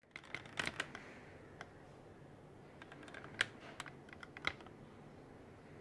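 Light, sharp clicks and taps at irregular intervals, about a dozen, over faint room noise.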